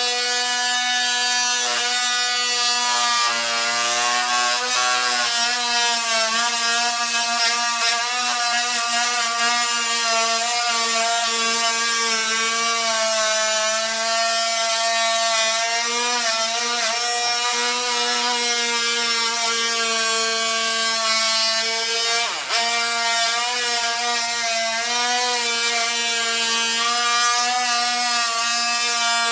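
Handheld oscillating multi-tool running steadily with a buzzing whine, its blade cutting a groove through glued-down hardwood flooring. The pitch wavers slightly as the blade loads and frees, with one brief drop about three-quarters of the way through.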